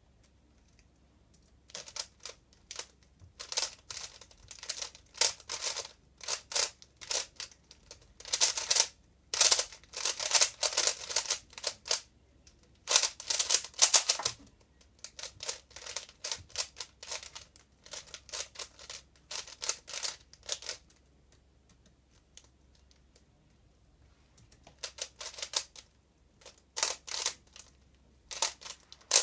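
A 3x3 speedcube being turned very fast by hand: dense runs of rapid plastic clicks and clacks as the layers snap round, broken by short pauses. The clicking starts about two seconds in, stops for about three seconds near the end, then starts again.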